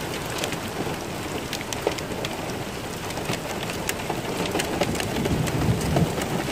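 Heavy rain pouring steadily onto a flooded field, with many sharp drop ticks scattered through it. A low rumble swells about five seconds in.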